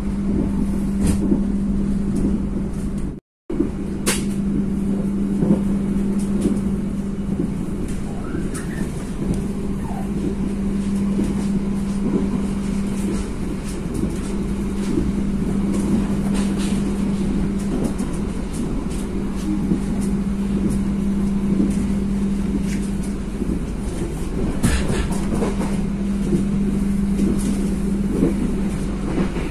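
Passenger train running: a steady rumble with a constant low hum and scattered clicks and knocks. The sound drops out briefly about three seconds in.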